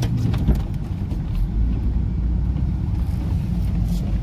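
Steady low rumble of a vehicle's engine and road noise, heard from inside the cabin while it drives.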